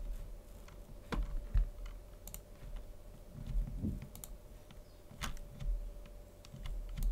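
Scattered clicks of a computer keyboard, roughly one a second, with soft thuds on the desk and a faint steady hum underneath.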